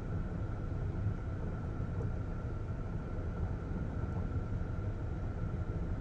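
Steady low rumble of a vehicle engine running at low speed, creeping along.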